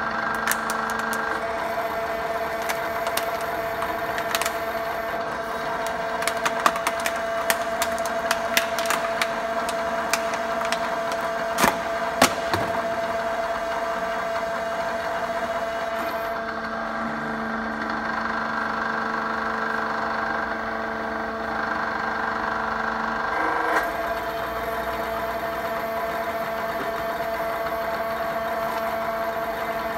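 Hydraulic press running with a steady hum while a plastic bottle is squeezed under the ram. It gives a run of sharp cracks and clicks that peaks around twelve seconds in. Later the press note changes for several seconds as the ram travels and stops with a short thump.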